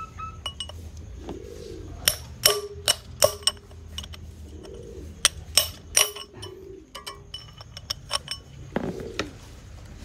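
A dozen or so irregular, sharp metal clinks, some ringing briefly, as a steel tool knocks and prises at the seized cast-iron pump of an opened refrigerator compressor. The compressor is jammed and will not free.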